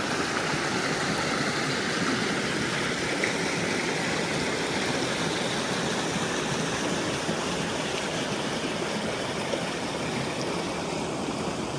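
Creek water rushing over a small waterfall: a steady, even rush.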